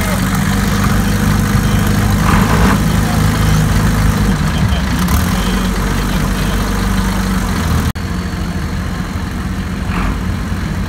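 Tractor engines idling with a steady low drone. About eight seconds in the sound breaks off abruptly, and a slightly quieter engine sound carries on.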